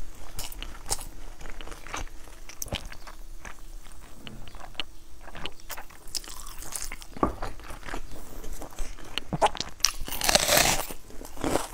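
Close-miked crunching bites and chewing of a whole raw red onion, a run of crisp crackles, with one loud crunching bite about ten seconds in.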